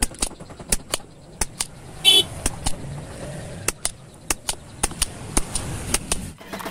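Desoldering a TDA2030 amplifier IC from a speaker amplifier board: irregular sharp clicks and taps of tools against the board, several a second, with a brief high squeak about two seconds in.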